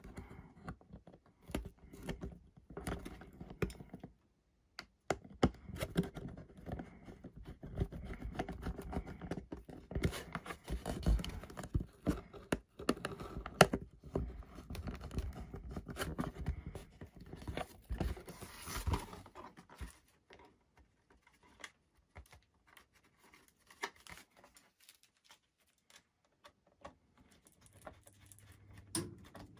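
Close handling noise of a foam RC plane wing and its servo being worked on by hand: rustling with many sharp clicks and knocks, dying down to near quiet about twenty seconds in.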